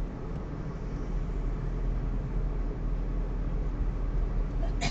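Steady in-cabin rumble of a Maruti Suzuki Alto K10 cruising at about 50 km/h on a wet road: engine and tyre noise, strongest in the low end. A single sharp click comes just before the end.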